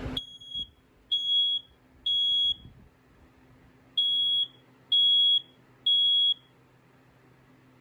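BRK 4120B ionization smoke alarm's piezo horn sounding on test while running on its backup battery: two rounds of three high-pitched beeps with a pause between, the temporal-three alarm pattern.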